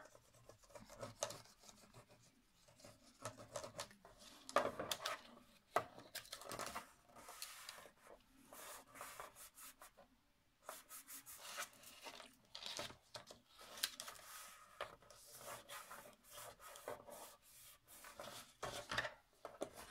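Paper and card being handled by hand: irregular rustling and rubbing as glued tabs and a patterned paper strip are pressed down onto a card box, with a short lull about halfway.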